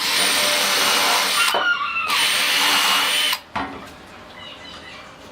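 Small handheld power tool running in two bursts of about a second and a half each, with a steady high whine over dense noise and a brief pause between, then stopping.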